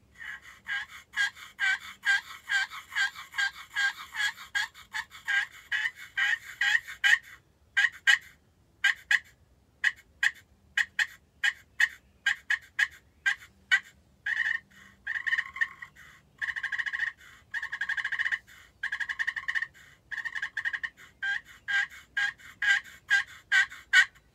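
Hand-worked friction turkey call imitating a hen turkey. It opens with a long, steady run of yelps, about two or three a second, moves to short, sharp clucks and cutting, then raspy purring runs, and ends with another series of yelps.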